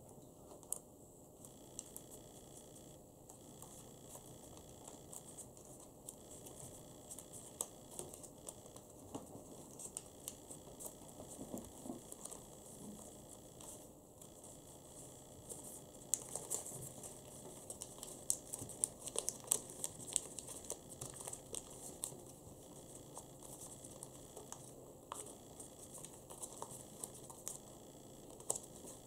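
Creased origami paper crinkling and rustling as fingers unfold a folded model, with many small sharp crackles. The crackling gets busier and louder about halfway through.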